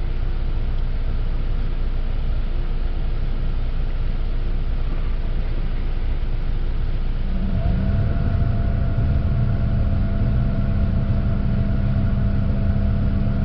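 Steady in-car hum with the engine running. About halfway through, a 2012 Buick Verano's HVAC blower motor switches on when the scan tool commands it to 96%. It starts with a short rising whine and settles into a steady hum with air rushing, though little air comes out of the vents.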